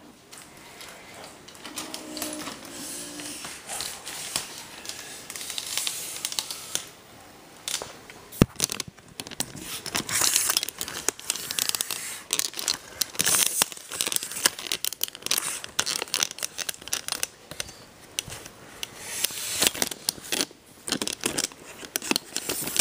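Handling noise: continual rustling and crinkling with many small clicks and knocks, and one sharp knock about eight seconds in.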